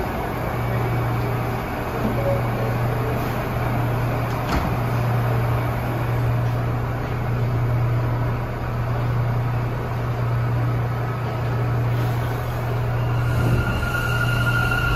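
R179 subway train standing at a station platform, its equipment giving off a steady low hum over broad station noise. About thirteen seconds in, a steady high-pitched whine starts up from the train.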